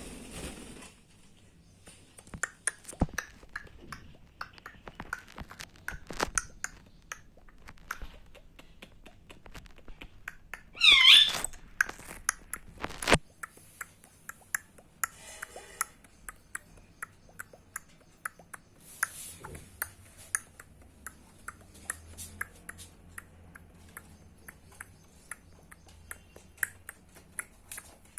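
Indian ringneck parrot making scattered sharp beak clicks, with one short, loud squawk about eleven seconds in.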